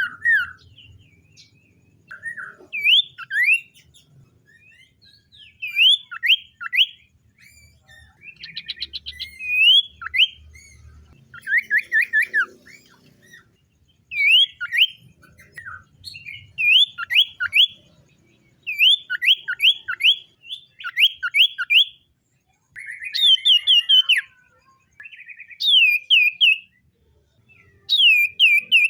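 Common iora singing: repeated short phrases of three or four quick, sliding whistled notes, one phrase every second or two with brief pauses between.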